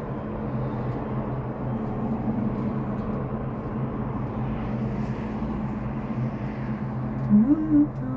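Aerial cable car gondola in motion, heard from inside the cabin: a steady hum and rumble with a low drone. About seven seconds in, a louder rising tone cuts in, with uneven louder pulses as the cabin nears a line tower.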